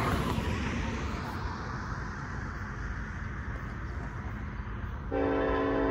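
A car passes close by, its tyre hiss fading over the first second, then a low steady rumble. About five seconds in, the lead diesel locomotive's multi-chime air horn starts up abruptly with a steady chord: the train sounding for the grade crossing as it approaches.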